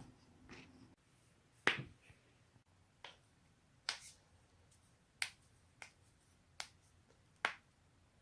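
Human joints cracking: a series of about eight sharp pops spaced roughly a second apart, the first the loudest.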